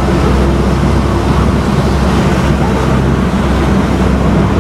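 Heavy downpour: a steady, loud wash of rain noise, mixed with a low rumble like road traffic.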